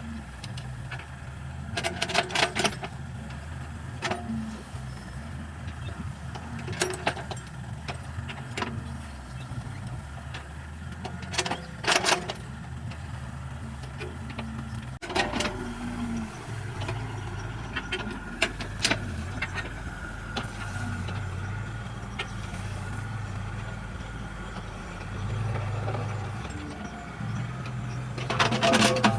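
Hydraulic excavator's diesel engine running steadily under load, with short metallic clanks and knocks from the bucket and arm at irregular intervals while it digs.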